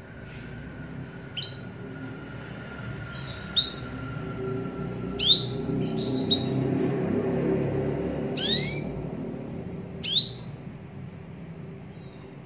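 Domestic canary giving short, sharp call chirps, about six of them spaced a second or two apart, calling out to rival birds.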